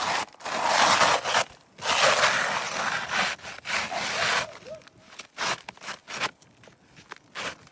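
Rough rubbing or scraping strokes: a few long strokes, then a run of shorter, sharper ones from about halfway.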